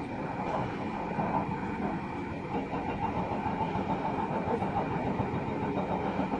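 Heavy construction machine's engine running steadily, a dense continuous mechanical noise with no distinct impacts.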